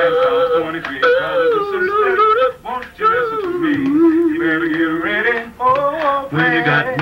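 Men's gospel vocal group singing in close harmony, drawing out long notes with vibrato; one note is held for about two seconds in the middle.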